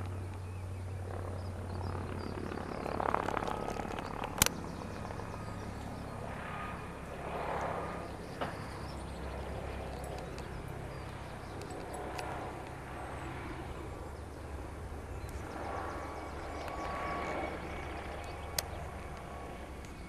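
Police helicopter flying overhead, heard as a steady low rotor drone that drops slightly in pitch partway through. A few soft rustles and one sharp click about four seconds in.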